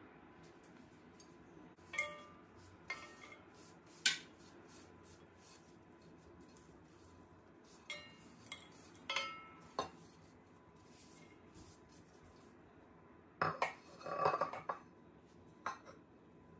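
Terracotta plate knocking and scraping against the rim of an aluminium karahi as chopped onion, green chillies and garlic are tipped into the empty pan: scattered sharp clinks, some with a brief metallic ring, the busiest cluster near the end.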